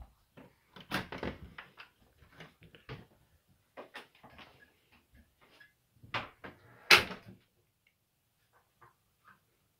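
Clicks and knocks from a wooden interior door and its metal lever handle and latch being worked, the loudest a sharp knock about seven seconds in.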